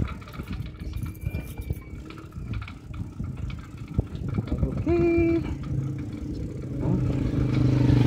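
Pedal tricycle rolling along a road, its sidecar frame rattling and clattering over bumps. A short flat tone sounds about five seconds in, and near the end a motor vehicle's engine hum rises as it comes close.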